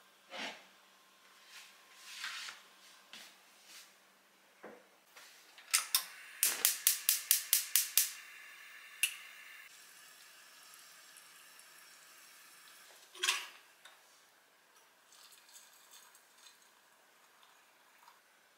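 Soft knocks of a wooden kitchen cabinet being handled, then a gas hob's igniter clicking rapidly, about eight clicks in a second and a half, as the burner lights with a faint steady hiss. A single knock follows a few seconds later.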